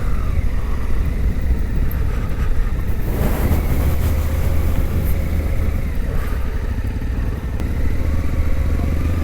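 Suzuki V-Strom 800DE's parallel-twin engine running steadily at low speed, with a brief rush of noise about three seconds in.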